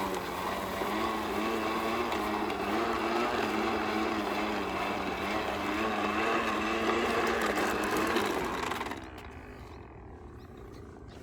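Battery-powered toy bubble lawn mower running its small motor with a steady whir that wobbles in pitch. It cuts off about nine seconds in.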